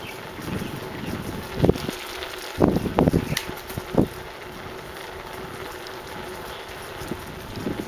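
Wind rushing over the microphone of a moving bicycle, with a few louder buffets and knocks at about one and a half, three and four seconds in.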